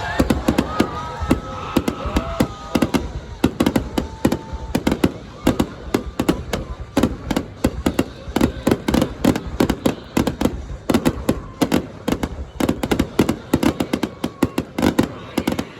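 Aerial fireworks going off in a rapid barrage of sharp bangs and cracks, several a second without let-up, stopping abruptly near the end. Faint voices are heard among the first few seconds of bangs.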